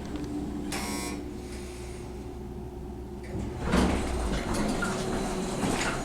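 Elevator car humming as it arrives, with a short ringing tone about a second in, then the elevator's sliding doors rumbling open from about halfway through.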